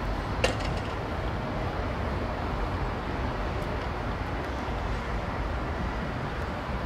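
Steady low rumble of a distant train approaching along the tracks, with one sharp click about half a second in.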